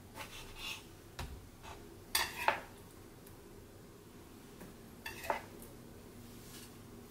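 Kitchen knife cutting soft grilled eggplant on a cutting board: several short knocks and scrapes of the blade against the board, loudest about two seconds in and again about five seconds in.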